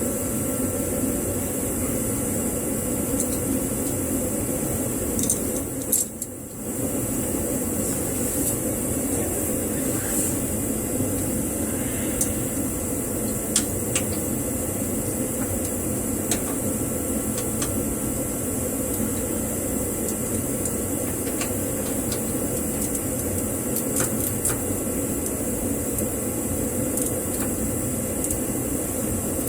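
A steady mechanical hum and hiss, with a few faint clicks scattered through and a brief drop in level about six seconds in.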